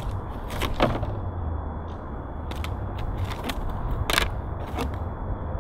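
Scattered sharp clicks and taps of a Wacom Intuos tablet box's cardboard and plastic packaging being handled, the loudest a little after four seconds in, over a low steady rumble.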